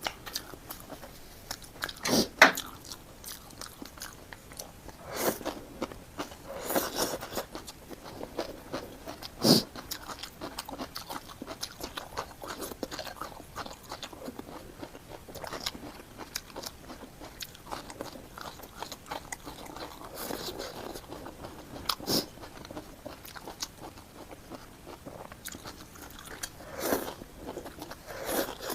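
A person eating close to the microphone: steady wet chewing broken by sharp crunchy bites, the loudest about two, ten and twenty-two seconds in.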